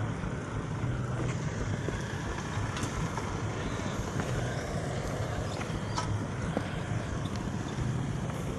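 23-90 Baker steam traction engine running under load, belted to a Baker fan: a steady low roar with a few faint clicks over it.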